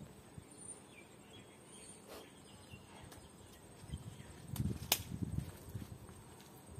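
Backyard outdoor ambience with a few faint bird chirps and a thin high steady whine. About five seconds in comes a low rumble with a single sharp click.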